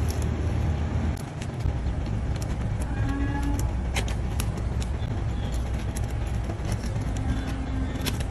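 Long-handled hoof nippers biting through a donkey's hoof wall: many sharp, irregular snaps and clicks over a steady low rumble.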